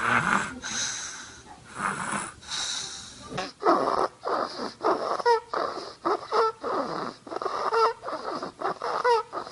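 A sleeping baby snoring. Breathy, hissing snores for the first three seconds or so, then quick squeaky, whistling snores at about two a second.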